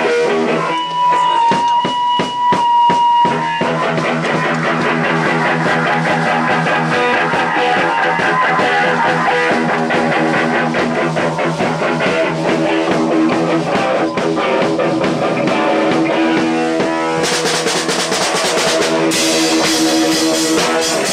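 Rock band rehearsing live: electric guitar through an amplifier, bass and drum kit playing together. A high held note rings over scattered drum hits for the first few seconds, then the full band comes in, and cymbals grow louder near the end.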